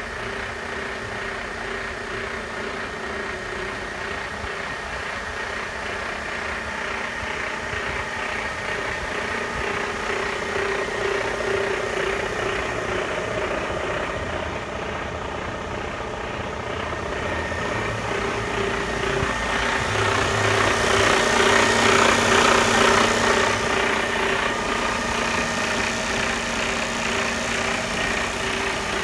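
Mercedes-Benz Arocs 3343 truck's diesel engine idling steadily with an even drone, louder for a few seconds past the middle.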